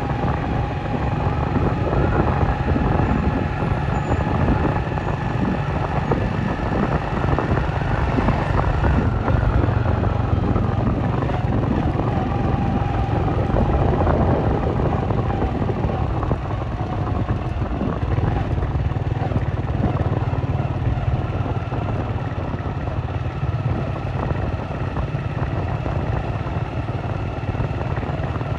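Steady road traffic: vehicle engines running, with a continuous low rumble.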